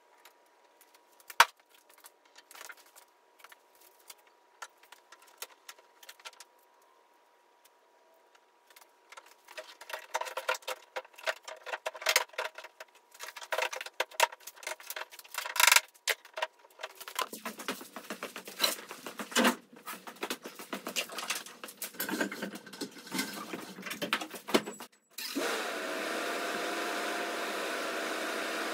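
Hands and tools working on a pickup's headlight assembly: scattered clicks and clinks of plastic and metal parts, sparse at first and much busier from about ten seconds in. Near the end a steady hum with a few held tones starts suddenly.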